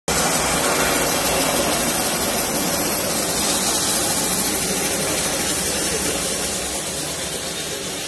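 Portable band sawmill's motor running steadily, a loud even noise that fades a little toward the end.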